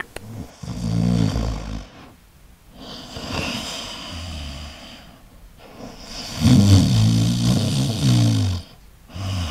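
Snoring in slow, drawn-out snores about every three seconds, the loudest one about six seconds in, as the golden retriever puppy is shown taking a nap.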